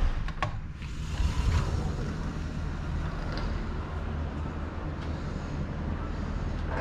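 Steady low rumble and hum of city traffic and machinery in the open air, with a couple of sharp clicks right at the start.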